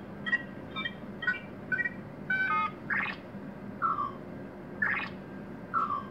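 Electronic sound effects from a Knight Rider KITT replica dashboard: a quick run of short multi-tone beeps, then a repeating rising sweep followed by a short falling tone about every two seconds.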